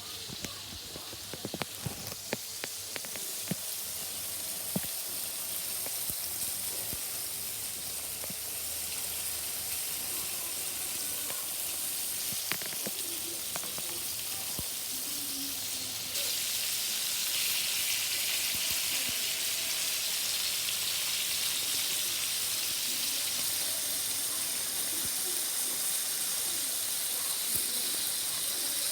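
Food sizzling in a hot pan, a steady hiss with scattered sharp pops and clicks in the first few seconds. The sizzle gets suddenly louder about sixteen seconds in.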